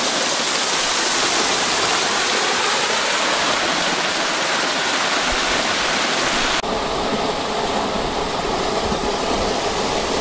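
A tall, thin waterfall splashing onto a rocky pool: a loud, steady rush of falling water. About two-thirds of the way through the rush changes abruptly to a slightly duller tone.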